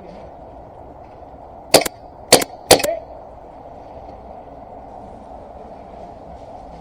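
Three sharp airsoft gun shots in quick succession, about half a second apart, each a short crack.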